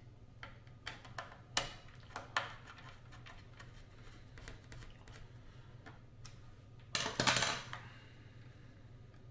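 Screwdriver working out the small screws of an LG UltraFine 5K monitor's metal bottom plate: light metallic clicks and scrapes in the first couple of seconds, then a louder clatter of about a second near the end.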